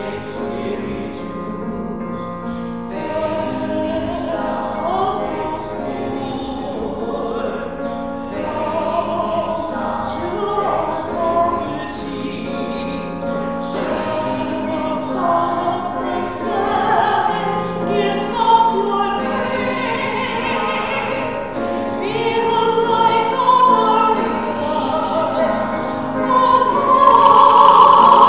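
Church choir singing a slow sacred chant or hymn, moving from one held note to the next, growing louder on a high note near the end.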